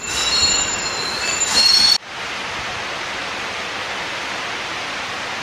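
Train wheels squealing shrilly on the rails, several high tones wavering together for about two seconds, then cut off abruptly. A steady, even hiss of station ambience follows.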